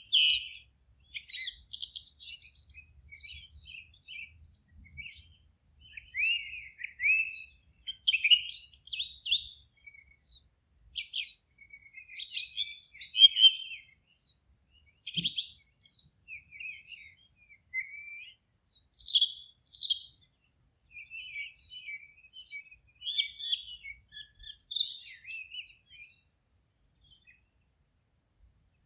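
Forest songbirds singing: short phrases of chirps, whistles and fast trills, one after another with brief pauses between.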